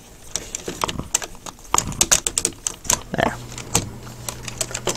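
Irregular plastic clicks and clacks from the hard plastic joints of a Takara MP-11NR Ramjet Transformers figure as they are worked back and forth by hand. This is a check on whether freshly tightened shoulder screws still let the parts slide.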